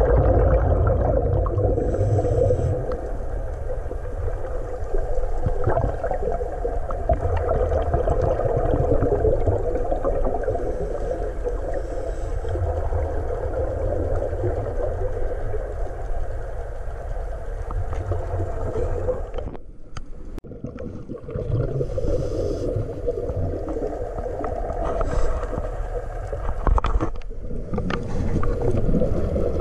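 Muffled underwater noise picked up through an action camera's waterproof housing: a steady low rumble and hiss. It dips briefly about twenty seconds in.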